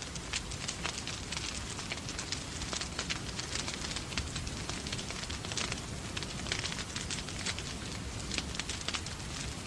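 Wood fire crackling in a fireplace, with many quick sharp pops and snaps, over a steady hiss of rain.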